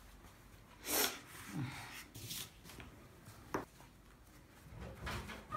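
Short rustling and rubbing sounds of hands working the pizza dough at the table, with a sharp click about three and a half seconds in.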